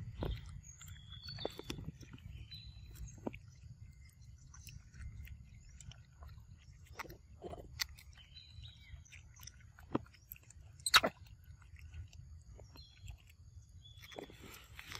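A macaque chewing and biting into ripe mango close up: wet, crunchy eating sounds with scattered short clicks, the sharpest about eleven seconds in.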